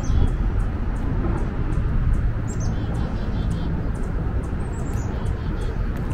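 Small birds chirping in short, scattered calls over a steady low outdoor rumble of city background noise.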